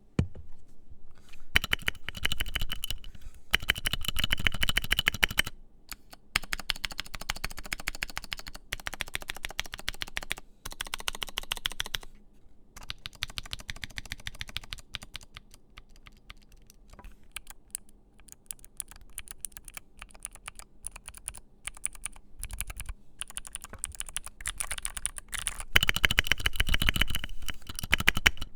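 Typing on a tape-modded Keychron Q3 aluminium mechanical keyboard with filmed and lubed Gateron Phantom Blue clicky switches. Fast runs of sharp keystroke clicks with brief pauses, the densest and loudest typing near the start and again near the end.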